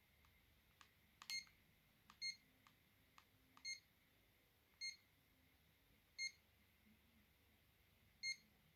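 Alcatel BC2 mobile phone's keypad beeping as its buttons are pressed to scroll through the menus: six short single-pitched beeps at uneven intervals, with soft clicks of the keys in the first few seconds.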